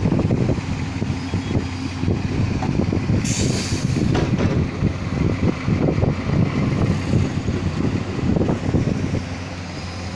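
A heavy vehicle's engine running with a low, uneven rumble, and a short hiss about three seconds in.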